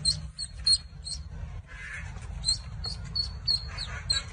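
Many short, high-pitched chirps from small animals, several a second, over a low rumble.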